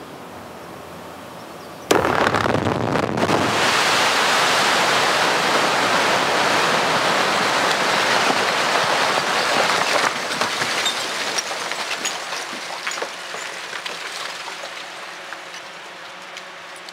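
Dynamite charge blasting rock: a sudden explosion about two seconds in, followed by a long loud rush of noise that holds for about eight seconds, then dies away with scattered clicks and rattles.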